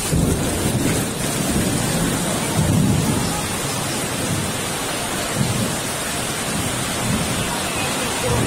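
Heavy downpour in a storm: a dense, steady rush of rain with an uneven low rumble under it that swells and fades.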